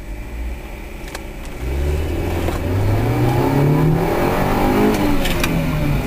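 Car engine heard from inside the cabin, revving up as the car accelerates from about a second and a half in, its pitch rising and then dropping back near the end.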